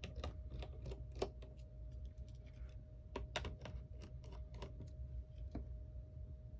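Irregular small clicks and taps of hand tools on an iPhone 6s Plus being taken apart, over a steady low hum with a faint constant tone.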